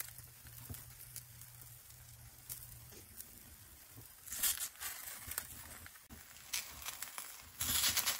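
Omelette frying in a stainless steel pan with a faint sizzle, while a silicone spatula presses on it and scrapes against the pan. The scraping and sizzling get louder about four and a half seconds in and again near the end.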